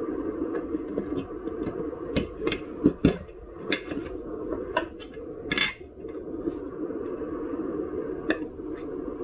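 Metal tools clinking and knocking against the parts of a KingSong 16X electric unicycle's wheel during a tyre change: scattered sharp taps, with a short scrape a little past halfway, over a steady hum.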